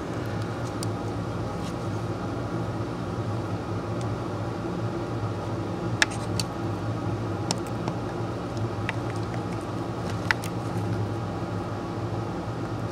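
Steady machine hum in a small room, with a few faint light clicks.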